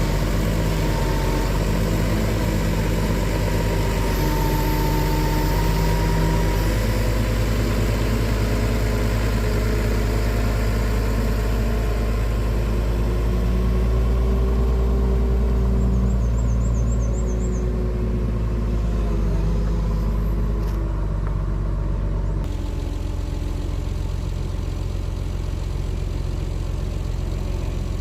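Wood-Mizer sawmill's engine running steadily. About 22 seconds in it shifts to a lower, slightly quieter run.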